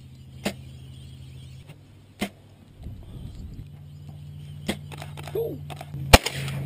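Shotgun shots at waterfowl: three fainter shots spread through the first five seconds, then one very loud close shot near the end. A steady low hum runs underneath.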